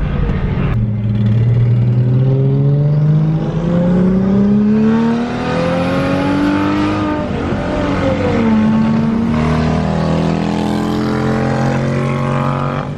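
Turbocharged Lexus IS300 inline-six accelerating hard. The engine pitch climbs steadily for about six seconds, drops at a gear change about seven seconds in, then holds and climbs again.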